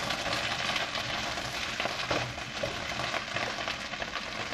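Chicken wings sizzling in a hot wok while being stir-fried, with the light scrape and knock of a spatula against the pan.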